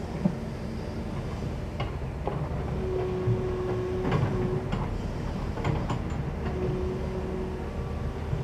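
Kobelco long-reach excavator working: its diesel engine drones steadily under load, a whine comes in twice as the hydraulics move the boom and bucket, and the bucket and linkage clank a few times.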